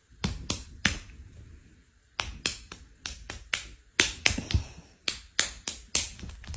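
A quick run of sharp slap-like clicks that go with one hairless cat's paw swats at another in a play-fight. Three come in the first second, then after a gap a steady string of about four a second.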